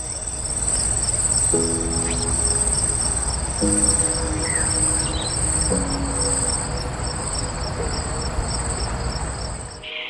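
Insects chirping: a steady high-pitched trill with a regular pulsed chirp beneath it, repeating a few times a second, over soft background music chords.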